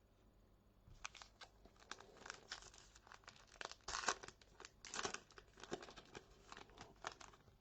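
A trading card pack wrapper being torn open and crinkled, in a rapid run of crackles from about a second in, loudest midway.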